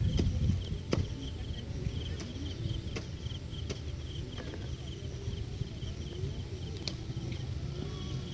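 Insects chirping in a steady, rapidly pulsing trill over a steady low rumble, with a few faint sharp clicks.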